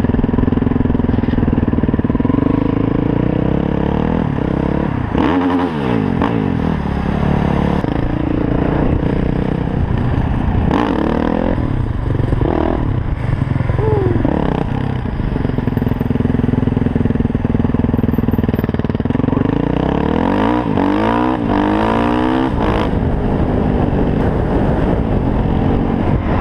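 Single-cylinder four-stroke engine of a Yamaha WR450F supermoto revving up and dropping back several times while riding, its pitch climbing and falling in repeated sweeps.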